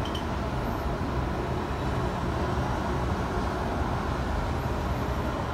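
Steady low background noise, even throughout, with no distinct events.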